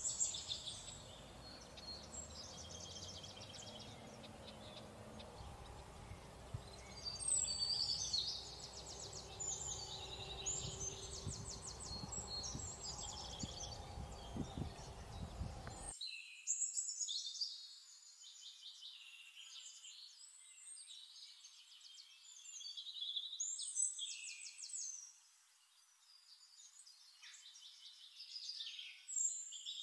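Small birds chirping and trilling in short, high-pitched phrases. Under them is a low background rumble that cuts off suddenly about halfway through.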